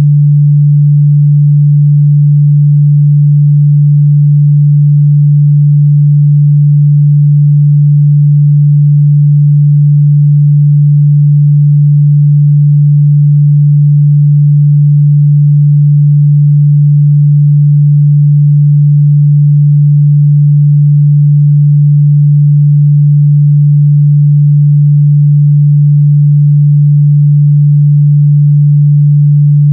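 A continuous 146 Hz sine-wave test tone, a steady low hum at one pitch that holds unchanged and loud throughout.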